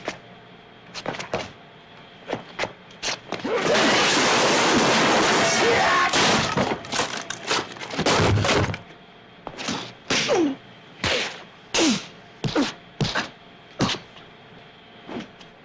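Foley props being struck for a fight scene: a string of separate thuds, whacks and knocks, with a loud, dense crash about two and a half seconds long starting near four seconds in.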